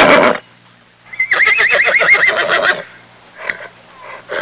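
Horse whinnying: a long neigh whose pitch quavers rapidly up and down, starting about a second in. The end of an earlier neigh sounds at the start, and another begins at the very end.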